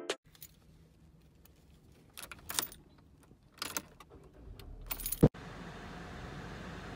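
A car key ring jangling in short bursts as the key goes into the ignition of a Chevrolet and is turned, ending in a sharp click about five seconds in. A steady low hum of the car follows.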